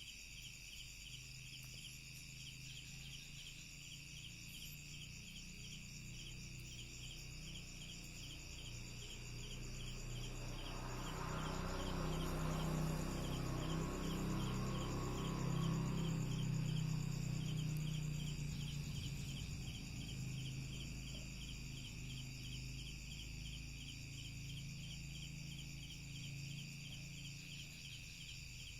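A steady chorus of crickets and other night insects, pulsing high and even. About a third of the way in, a low droning hum slowly swells, is loudest near the middle, then fades away again. It is the strange droning sound the recording was made for, its source unknown.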